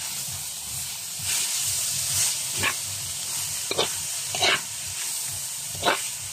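Shredded green papaya stir-frying in a wok: a steady sizzling hiss, with a few sharper scraping strokes as the metal spatula turns the strips against the pan.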